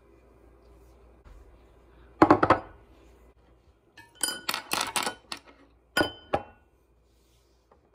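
Ceramic dishes clinking and knocking against each other and the tabletop as they are set down beside a pot, in a few short clusters of clatter.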